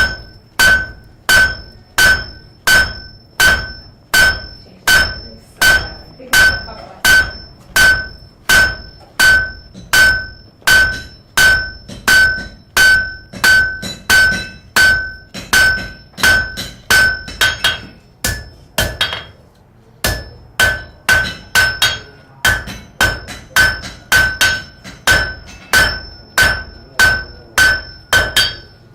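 Blacksmith's hammer striking metal on an anvil at a steady pace of about three blows every two seconds, each blow ringing out with the same clear tone. The hammering stops for about two seconds roughly two-thirds of the way through, then carries on at the same pace.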